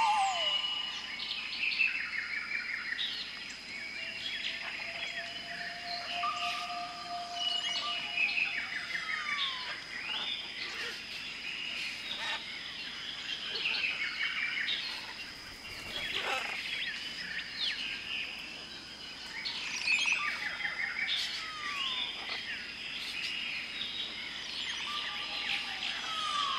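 Many Amazon rainforest birds calling and singing together: overlapping chirps, whistles and short falling notes over a steady high whine.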